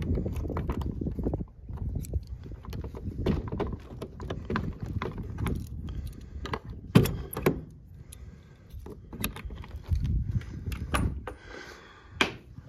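Metal snap hook and hasp clinking and clacking as a wooden shed door is unlatched, then the door being pulled open, with wind rumbling on the microphone.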